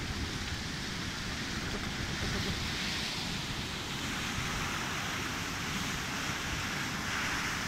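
Steady rushing of a flood of hail and meltwater flowing past, with a low rumble of wind on the microphone.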